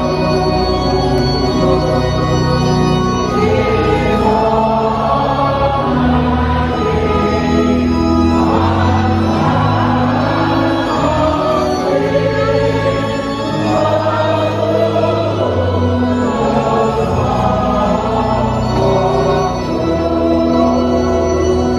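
A church choir singing a gospel hymn with organ accompaniment: long held notes over a steady bass line.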